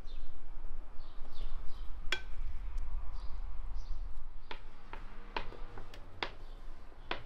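Kitchen handling sounds of a wooden spoon scooping meat-and-potato filling into a dough-lined bowl: a sharp, ringing knock of the spoon on the bowl about two seconds in, then several lighter clicks in the second half as the filled dough is handled in its glass bowl. A low rumble runs underneath.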